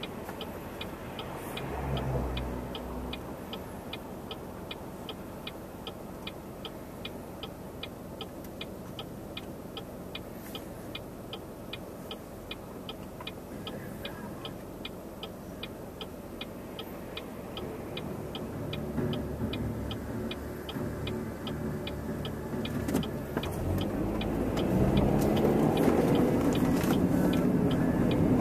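A car's turn-signal indicator clicking steadily inside the cabin over a low engine and road hum; the clicking stops a little past halfway, and the engine and road noise then build as the car speeds up.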